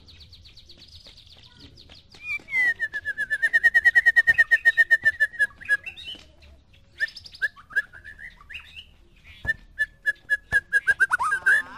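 White-rumped shama (murai batu) singing: soft fast twittering, then a loud rapid trill lasting about three seconds, varied whistled phrases, and near the end a quick run of repeated sharp notes closing in a falling flourish.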